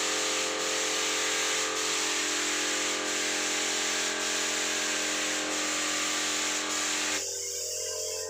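Compressed-air spray gun hissing steadily as it atomises wood finish onto a door, with a steady hum underneath. About seven seconds in, the hiss abruptly turns duller.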